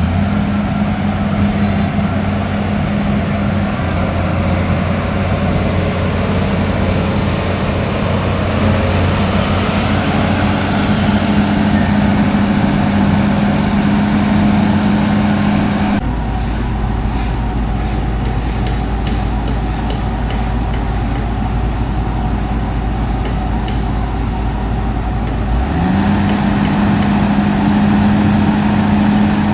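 A heavy engine running steadily with a constant low hum that drops out about halfway through and comes back near the end.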